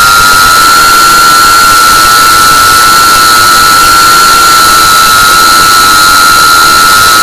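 A GEPRC CineLog35 3.5-inch FPV drone's brushless motors and propellers whining loud and close, as picked up by its onboard camera. The pitch holds steady, with the drone at an even throttle.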